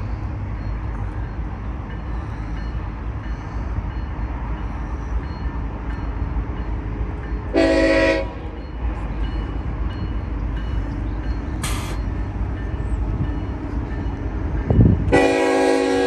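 Union Pacific locomotive air horn from the approaching train: one short blast about halfway through, then a long blast starting near the end. A steady low rumble runs underneath.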